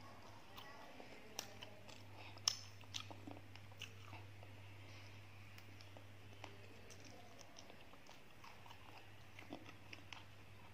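Close-miked chewing of soft egg (balut and quail eggs) with scattered wet mouth clicks; the loudest click comes about two and a half seconds in. A low steady hum runs underneath.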